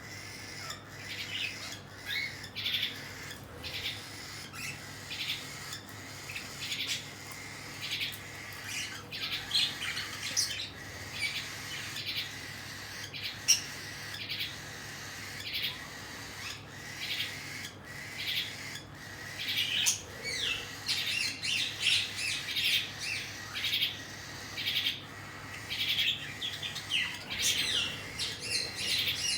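Cockatiel chicks begging to be fed, with many short, high, scratchy chirps repeated one after another, coming faster and more densely in the second half.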